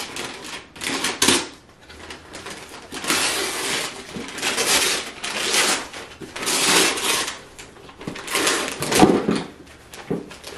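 Christmas wrapping paper being torn and ripped off a cardboard gift box by hand, in a series of separate rustling rips about a second apart.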